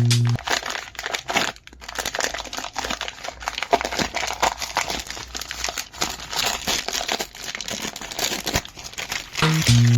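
Plastic packaging crinkling and rustling in bursts as it is handled and unwrapped, with small clicks and taps.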